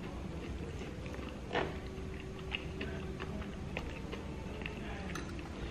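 Plastic fork tapping and scraping as food is cut and picked up: scattered small clicks, the sharpest about a second and a half in, over faint background music.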